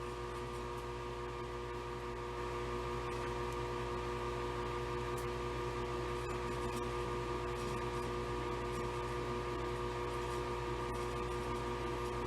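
Steady background hum of a small machine or electronics running in a room, with several constant pitched tones over a low, even rumble.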